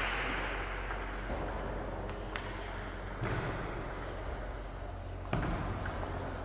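A table tennis ball giving several scattered sharp clicks between points, over a steady hiss in a large echoing hall.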